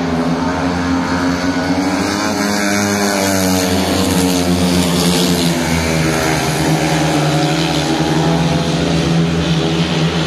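Several speedway motorcycles racing, each a 500cc single-cylinder methanol engine, running under the new silencers. Their engine notes run without a break and swing up and down in pitch as the riders throttle through the bend and pass.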